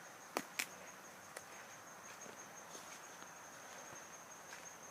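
Steady high-pitched drone of insects in the woods, faint and unbroken. Three short sharp clicks stand out: two close together within the first second and one more about a second and a half in.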